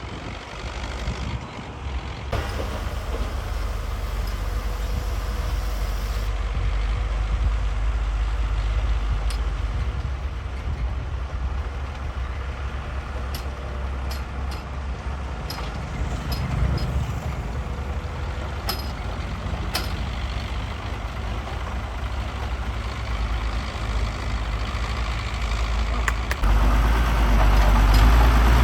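Heavy diesel construction machinery running with a steady low rumble, with scattered sharp clanks partway through and the engine sound growing louder near the end.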